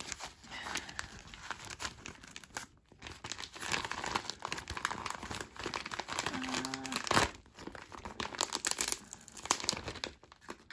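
Plastic mailer bag crinkling and rustling as it is snipped open with scissors and pulled apart by hand, in irregular crackles.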